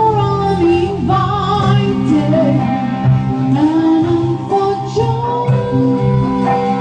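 A woman sings live into a microphone, with vibrato, over guitar and band accompaniment. She holds a long steady note from about five seconds in.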